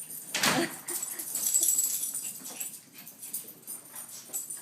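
Excited pet dogs greeting someone who has just come home: scuffling and snuffling noises, with a short loud rustling burst about half a second in.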